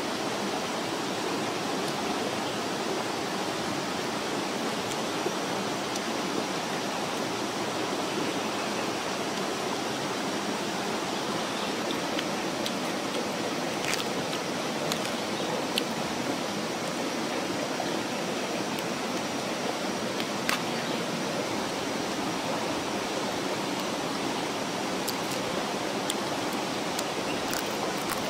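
Steady rushing of a jungle stream flowing over rocks, even throughout. A few light clicks sound over it.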